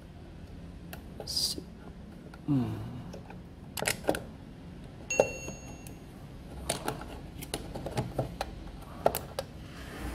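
Clicks and knocks of plastic and cable connectors as the amplifier and control panel of a Behringer MPA 40 BT portable speaker is pressed back into its cabinet. About five seconds in comes one sharp click with a brief ringing.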